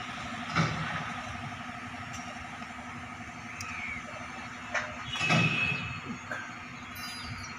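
Steady engine-like hum of machinery, with a sharp knock about half a second in and a louder clatter of knocks a little past halfway.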